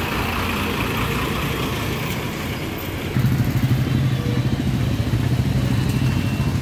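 Bus engine running as the bus moves off, with road-vehicle noise. About three seconds in, a louder, steady low engine hum takes over.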